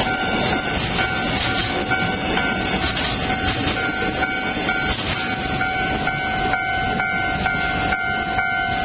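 Container wagons of a freight train running past with a steady rumble and rhythmic clacks over the rail joints. Over it sound a steady high tone and a second tone that pulses about twice a second.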